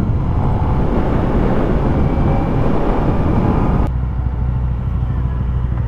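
Kawasaki ZX-4RR's 399 cc inline-four running while the motorcycle is ridden, with wind rush over the engine note. About four seconds in, the rushing noise drops away abruptly, leaving a steadier low engine hum.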